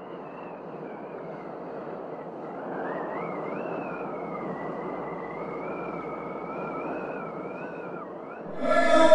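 A rushing noise that fades in and slowly swells, with a thin wavering whistle gliding up and down above it. Music with sustained chords comes in near the end.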